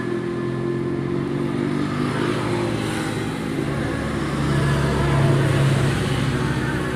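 Motor vehicle engine running steadily, growing louder for a moment about four and a half seconds in.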